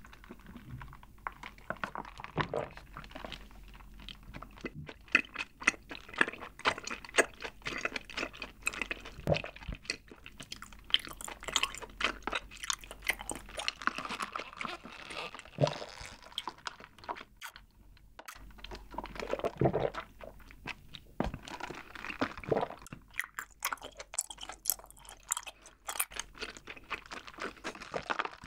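Taro milk tea and tapioca pearls sucked up a wide straw, then the chewy pearls chewed wetly, close to the microphone: a dense run of small sticky clicks and smacks, with a short pause a little past the middle.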